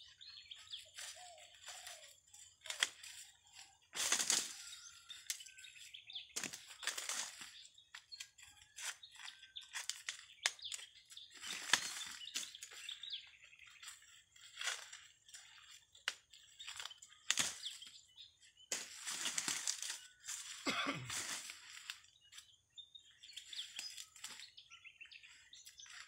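Dry corn husks and leaves rustling and crackling in irregular bursts as ears of corn are husked by hand among dried stalks.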